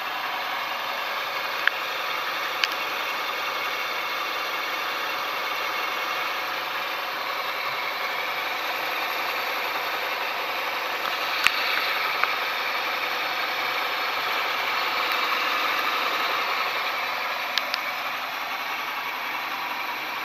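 Toyota 3S-FE four-cylinder engine running with a strong rustling, hissing noise over its idle, swelling a little in the middle and easing near the end; a few sharp ticks stand out. It is the abnormal noise the owner means to cure with a repair.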